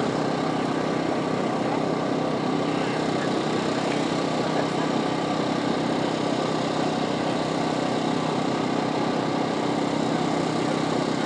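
An engine running steadily at an even speed: a constant drone with no change in pitch.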